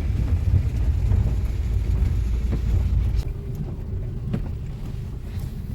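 Car on the move: a low, steady rumble of engine and road that eases off about halfway through.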